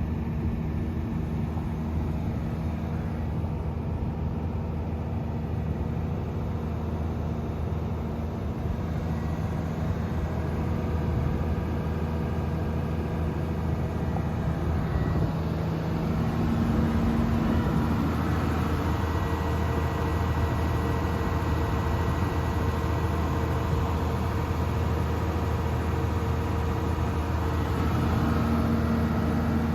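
Komatsu PC210LC-7 excavator's six-cylinder diesel engine running steadily, growing a little louder about halfway through.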